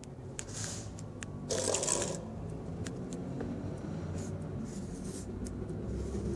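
Handling noise from a handheld phone being moved close to its microphone: rustling and rubbing with a few sharp clicks, the loudest rustle about a second and a half in.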